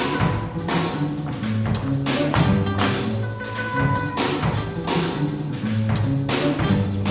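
Music: sustained low notes under sharp, irregularly spaced percussive strikes.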